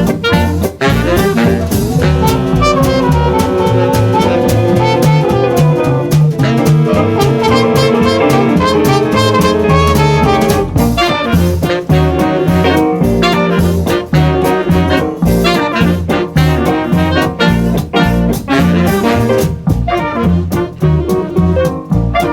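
Swing jazz with saxophone and brass over a walking bass and drum kit, in a steady dance beat.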